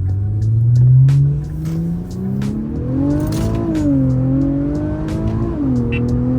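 Honda Type R engine fitted with a cold air intake, pulling hard under full acceleration: its pitch climbs steadily, drops at an upshift about halfway through, climbs again, and drops at a second upshift near the end.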